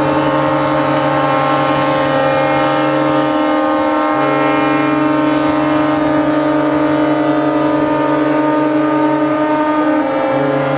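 Several ships' horns sounding together in long, held blasts at different pitches, forming a loud, steady chord. The deepest horn breaks off for a moment a few seconds in and again near the end.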